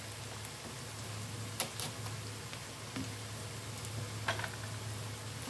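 Chopped onions and whole spices frying in oil with a quiet, steady sizzle, with a few sharp clicks as cracked dried limes (loomi) are dropped into the pot, about one and a half seconds in and again near the end.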